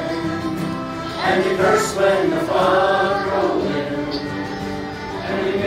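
A group of voices singing along together to a Newfoundland folk song, backed by accordion and acoustic guitar.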